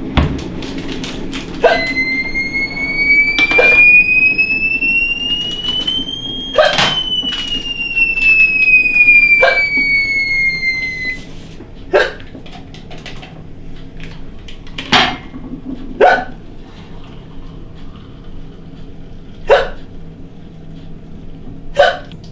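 A woman's chronic hiccups: about ten short, sharp hiccups at uneven gaps of one to three seconds. A few seconds in, a whine starts that slowly rises in pitch and then falls back before cutting off about halfway through.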